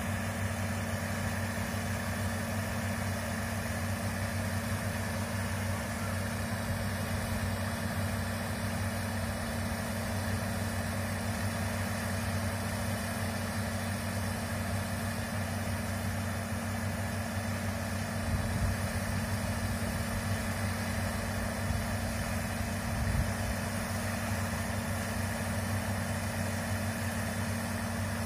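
Komatsu hydraulic excavator's diesel engine running steadily at a constant speed, with two brief heavier swells in the second half.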